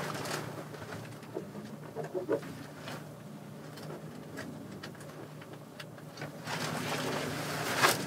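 Light paper rustling and small ticks as a paper form in a folder is handled and written on with a pen, over a steady low room hum. A louder rustle swells near the end.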